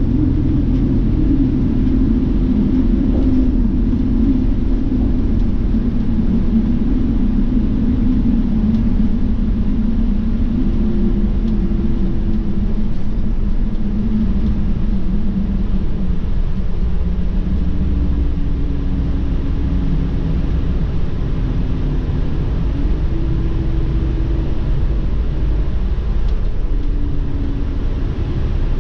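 Inside a highway coach bus at speed: steady low road and engine rumble, with an engine drone that drifts lower and shifts in pitch several times.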